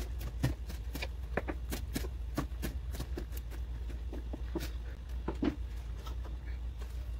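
Kitchen knife chopping fresh coriander leaves on a plastic cutting board: quick, irregular taps, a few a second.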